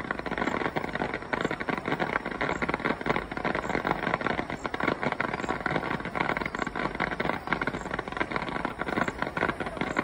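Fireworks barrage with many shells bursting in quick succession: a dense, continuous crackle of pops and bangs.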